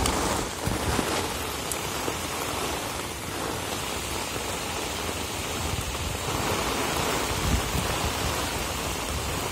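Heavy rain pouring steadily, an even hiss of water.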